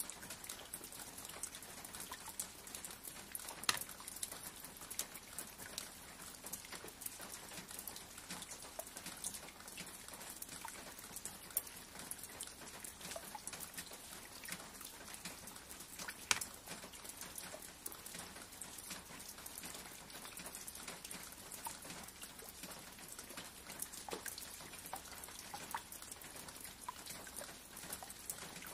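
Rain pattering: a steady patter of many small drops ticking, with a few louder single ticks now and then.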